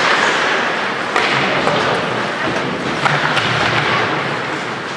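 Ice hockey play in an indoor rink: a steady wash of skate, stick and crowd noise, with sharp knocks about a second in and about three seconds in.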